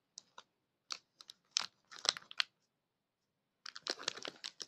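Plastic packaging of a disposable film camera crinkling and crackling as it is handled, in short irregular bursts, denser near the end.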